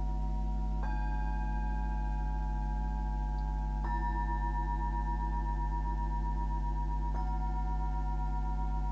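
Himalayan singing bowls struck three times, about three seconds apart, each strike ringing on and layering over the last with a slow wavering pulse. A steady low hum runs underneath.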